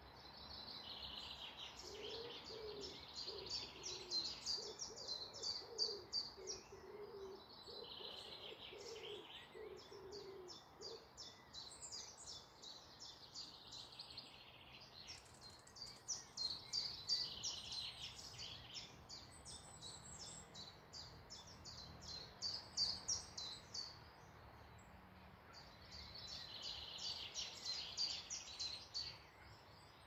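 Woodland songbirds singing in long phrases of rapid high notes, several phrases in turn with short gaps between. A lower repeated call runs under the song for about the first ten seconds.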